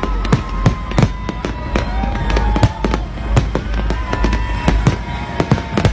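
Fireworks display: shells bursting in rapid, irregular bangs, several a second, with long, slowly falling tones heard over them.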